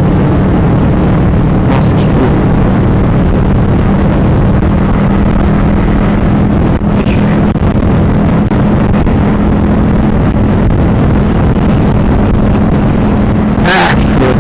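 Motorcycle engine running at a steady speed while riding, a constant low hum under dense rushing noise.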